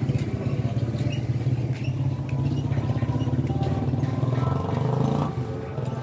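Motorcycle engine running steadily, swelling higher about four seconds in and dropping back suddenly just after five seconds.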